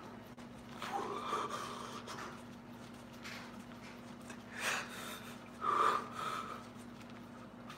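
A man breathing hard through resistance-band reps: four short forceful breaths, the loudest about six seconds in, over a faint steady hum.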